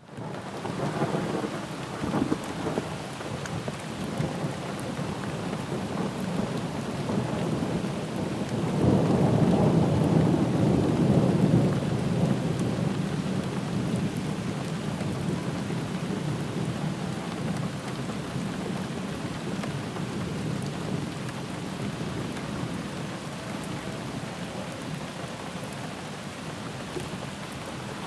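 Steady rain falling, with rolls of thunder: a short rumble in the first few seconds, then a louder, longer roll about nine seconds in that slowly fades.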